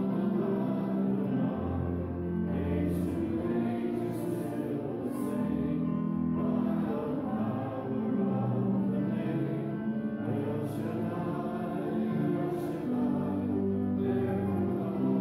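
A congregation singing a hymn together, many voices with sustained low accompanying notes.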